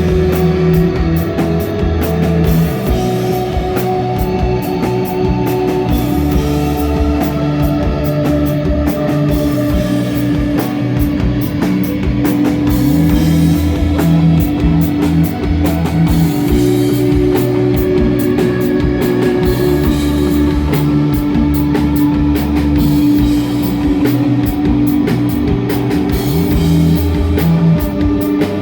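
Live instrumental desert rock band playing: electric guitar holding long sustained notes over bass and a drum kit.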